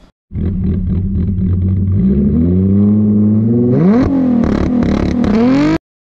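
Car engine revving: the pitch climbs about two seconds in, drops sharply and climbs again about four seconds in, then rises once more before cutting off suddenly near the end.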